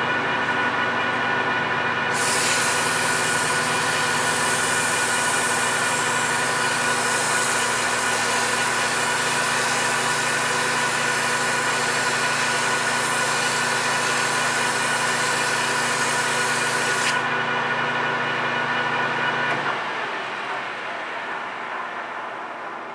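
PM1660 manual engine lathe running with a steady whine of several tones while emery cloth hisses against the spinning 6061 aluminum bar, from about two seconds in until about three-quarters of the way through. Near the end the lathe is switched off and coasts down.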